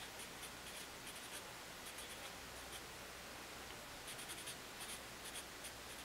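A pen writing on a sheet of paper: faint, short strokes in quick clusters, with brief pauses between words.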